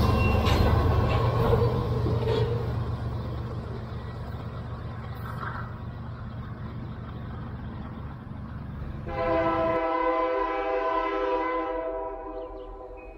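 Freight train cars rolling past with a low rumble that fades away over several seconds. About nine seconds in, a locomotive air horn sounds one long steady blast of several notes for about three seconds, then fades.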